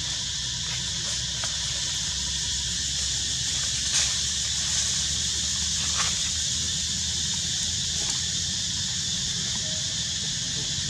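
Steady high-pitched drone of insects in the surrounding woodland, with a few brief clicks about four and six seconds in.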